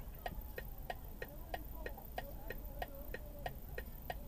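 A car's turn-signal or hazard-light indicator ticking steadily and faintly, about three ticks a second.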